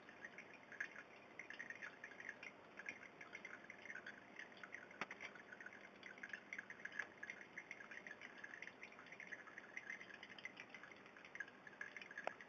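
Aquarium water faintly bubbling and trickling in a steady patter of tiny drips, with two sharp clicks, one about five seconds in and one near the end.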